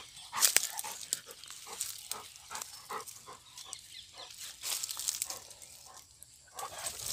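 Footsteps crunching through dry fallen leaves, an uneven run of about two to three crackling steps a second.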